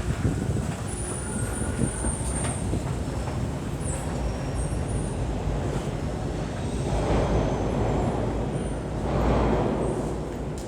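Toronto subway train rumbling in the station, with scattered thin high-pitched squeals and two louder rushes of noise, about seven and nine and a half seconds in.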